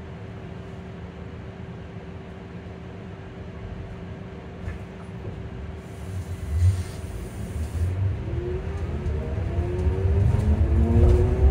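Electric bus drivetrain: a low steady hum with a faint constant tone while the bus stands, then, from about eight seconds in, a rising whine of several tones over a growing rumble as the traction motor drives the bus away and speeds it up.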